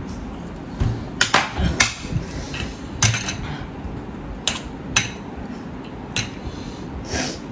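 Dishes and utensils knocking and clinking, about eight sharp irregular knocks, the loudest near the start.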